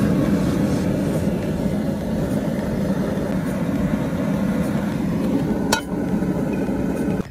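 Burner of a Camp Chef Denali Pro 3X propane camp stove burning with a steady, loud rushing noise. About six seconds in there is a short metallic clink as a frying pan is set on the steel grate.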